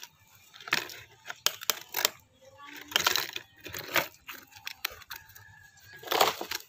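Plastic toy excavator bucket scooping gravelly sand and tipping it into a plastic toy dump truck bed. It makes a string of short gritty scrapes and rattles of grit and pebbles on plastic, the loudest scrape near the end.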